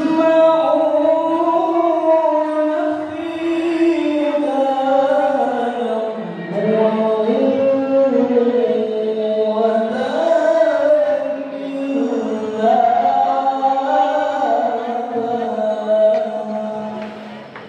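A male qari reciting the Quran in the melodic tilawah style, amplified through a microphone: long held, ornamented notes that slowly rise and fall, dipping to a low note about six seconds in.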